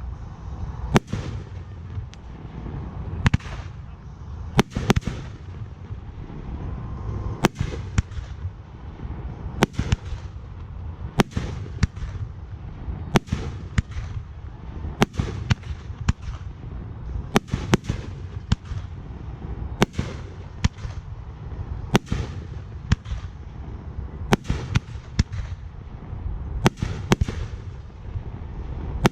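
Aerial fireworks display: shells bursting in a steady barrage, a sharp report about every second over a continuous low rumble, some reports trailing off in echo.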